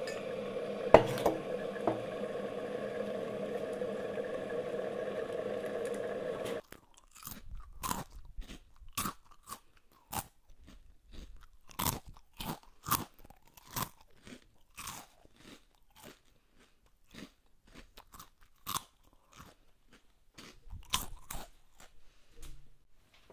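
A steady mechanical drone cuts off suddenly a few seconds in. Then comes close-up crunching of someone chewing crisp food, about one crunch a second, irregular.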